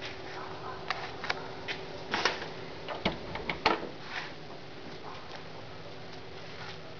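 A string of sharp clicks and knocks, the loudest about halfway through, as the driver's door of a 1950 Ford two-door sedan is unlatched and swung open.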